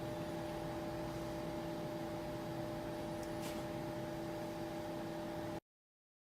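A steady electrical hum over a low hiss, carrying two steady tones, that cuts off suddenly to dead silence near the end.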